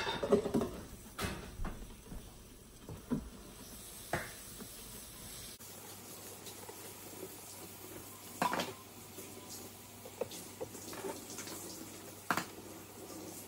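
Glass pan lid set onto a frying pan at the start, then scattered light knocks and clinks of kitchen work. The sharpest of these come about eight and twelve seconds in.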